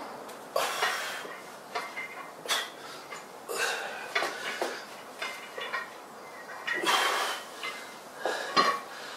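Iron weight plates clinking and rattling on a loaded barbell as it is curled, with hard breaths between reps, and a sharper metallic clank about 8.6 seconds in as the bar is set down.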